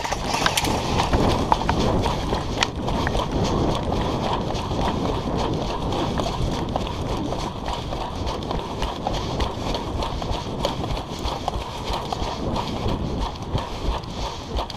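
Footsteps of a person running: a long run of quick, irregular steps and scuffs.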